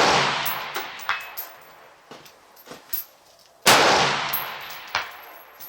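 Two rifle shots, one right at the start and the second about three and a half seconds in, each followed by a long rolling echo that dies away.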